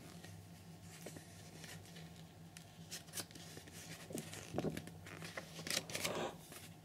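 Faint rustles and light taps of a hardback picture book being handled, with a page turned about two-thirds of the way through.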